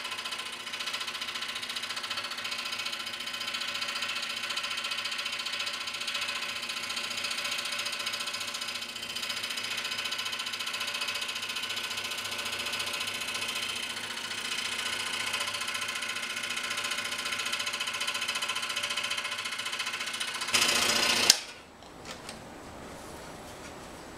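Scroll saw running steadily as its fine blade cuts through thin brass bar. About 20 seconds in, it gets louder for under a second, ends with a sharp click, and then a quieter steady hiss remains.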